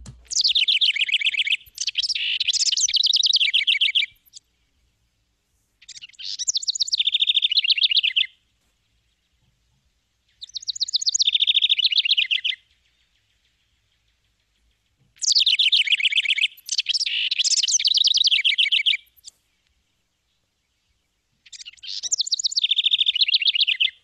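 House wren singing: a run of songs, each a rapid, cascading jumble of harsh trills and chatters lasting two to four seconds, with short silent gaps between them.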